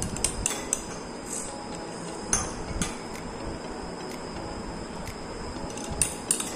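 A spoon clinking and knocking against glass dishes in a few scattered taps, with the loudest knocks a little over two seconds in and again near the end.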